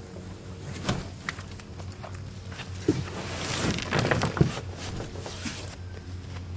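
An old plank duck boat being tipped over and set down on grass: a few knocks from the hull, with a rustling scrape through the grass and the loudest knocks about four seconds in.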